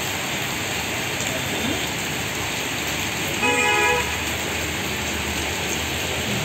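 Heavy rain pouring steadily on a street, with traffic moving through the wet road. About three and a half seconds in, a vehicle horn sounds once for about half a second.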